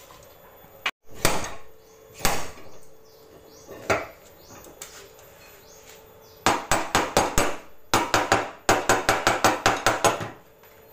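A slide hammer's weight knocks sharply against its stop three times, pulling on a dented Avanza body panel. Then comes a fast run of light hammer taps on the sheet metal around the dent, about five a second, in two bursts.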